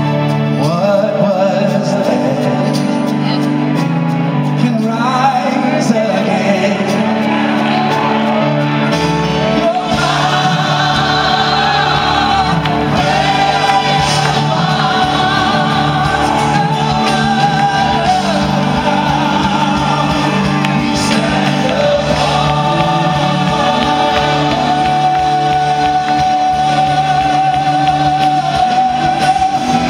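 Live gospel worship music: a worship team of several singers with band accompaniment, echoing in a large hall. Deep bass comes in about nine seconds in, and the lead voice holds one long note near the end.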